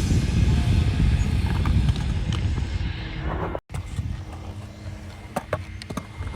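Skateboard wheels rolling on concrete, a loud steady rumble; after a sudden cut the rolling is quieter, with a few sharp clacks.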